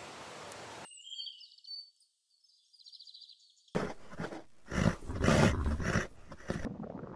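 Horses making loud, rough, noisy vocal sounds, starting about halfway through and loudest near the end. Before that there is a steady outdoor hiss, then a short stretch of faint high chirping.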